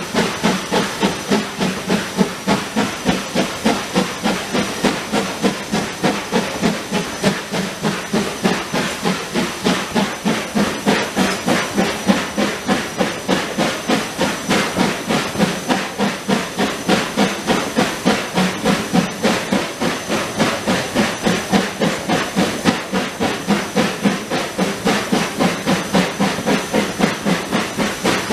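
Steam tank locomotive working a train, heard close up from the carriage right behind it: an even, fast beat of exhaust chuffs, about four a second, with continuous steam hiss and the run of the wheels.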